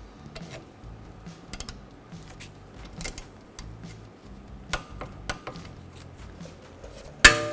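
Torque wrench being worked on the rear brake caliper slider bolts: scattered small metallic clicks and clinks, then one sharp metallic click with a brief ring near the end.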